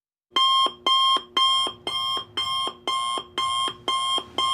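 Alarm clock beeping in a steady repeating pattern, about two beeps a second. It starts about a third of a second in and sounds eight times.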